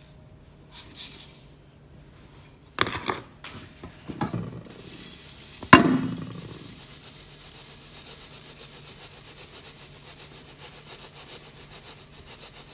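Garri being sifted through a perforated aluminium sieve: a few knocks, then one sharp metal clank with a short ring about six seconds in, followed by a steady grainy hiss with a light pulse as the sieve is shaken and the granules fall through the holes.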